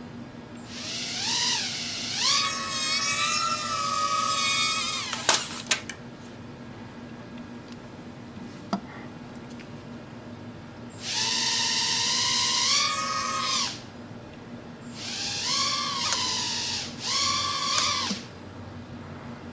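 Estes Proto X nano quadcopter's four tiny motors whining in three short bursts, the pitch rising and falling with the throttle as it lifts off and comes back down. A couple of sharp taps fall between the bursts.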